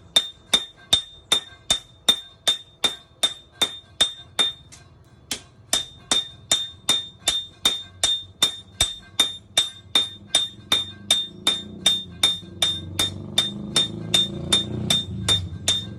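Hand hammer striking a machete blade on an anvil in a steady rhythm, about three blows a second, each with a bright metallic ring; the hammering pauses briefly once, about four and a half seconds in. A low rumble grows underneath in the last few seconds.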